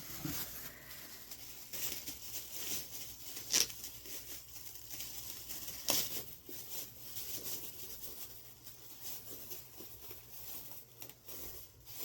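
Packaging rustling, crinkling and tearing as a doll kit is unwrapped by hand, with two sharper crackles about three and a half and six seconds in.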